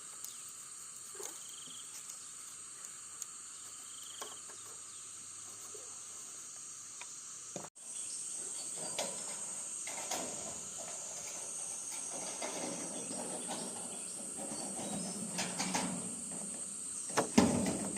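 Insects chirring in a steady high drone. After an abrupt cut about eight seconds in, scattered light knocks and rustling join it, with a sharper knock near the end.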